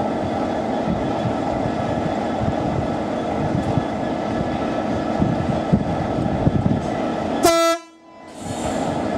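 Class 66 diesel locomotive's two-stroke V12 engine running steadily while the locomotive stands at the platform, with a short blast on its horn about seven and a half seconds in, after which the sound drops away sharply for a moment.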